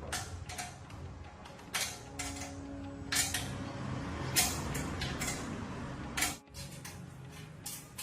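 Scattered clicks and knocks of parts and tools being handled during a motor repair, over a low steady hum.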